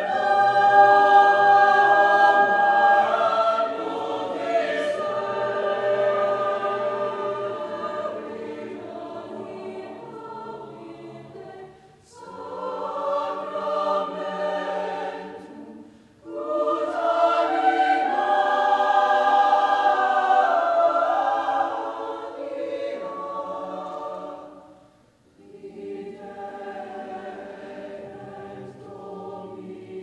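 Mixed choir of men's and women's voices singing sacred choral music in sustained chords, in long phrases with short breaks between them about 12, 16 and 25 seconds in.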